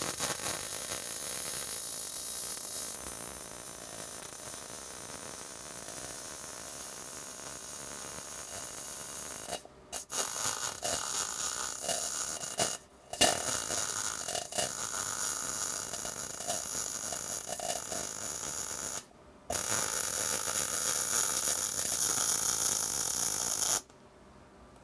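MIG welding arc on solid (hard) wire laying the root pass on a pipe joint: a steady hiss and crackle, broken by three short pauses where the arc stops and restarts, and ending about a second before the end.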